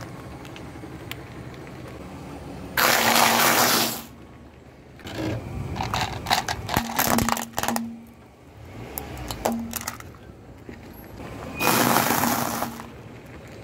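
A car tyre rolling over small objects on asphalt and crushing them: a series of separate crunching and cracking sounds, with a plastic toy cracking under the wheel in the middle and crumbly snack food crunching near the end. The two loudest are bursts of noise about three seconds in and near the end.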